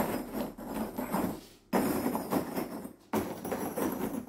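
Ceramic filter media tubes clinking and knocking against each other and the plastic tray as they are moved and packed by hand, in three spells of rattling with brief pauses between.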